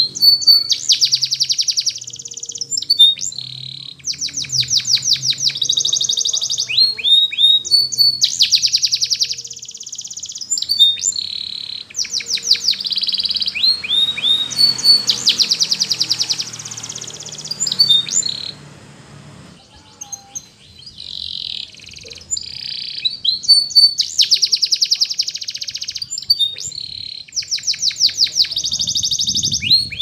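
Domestic canary singing a long, high-pitched song of fast trills of repeated notes and rolling phrases. Short breaks fall between phrases, with a longer pause about two-thirds of the way through.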